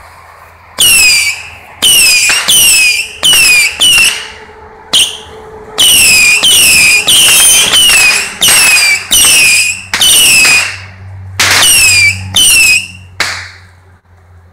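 Saturn Missile 25-shot firework battery firing: a rapid string of about fifteen loud whistles, each falling in pitch and lasting about half a second, from about a second in until about 13 seconds in.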